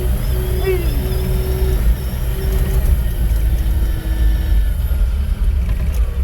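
Matbro telehandler's diesel engine running under way, a steady low rumble, with a steady mid-pitched whine that cuts in and out several times.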